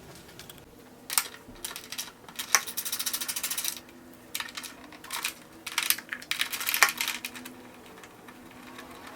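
Small metal clicks and clinks of hand tools and fasteners being worked on a motorcycle's windscreen mounts. There is a quick run of rapid clicks about three seconds in, and another busy cluster of clinks near seven seconds.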